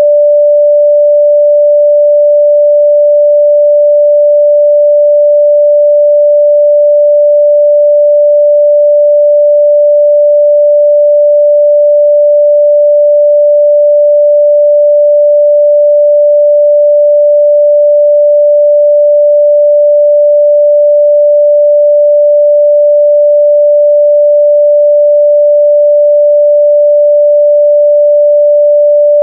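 A steady, loud 588 Hz sine-wave test tone, a single pure pitch held without change.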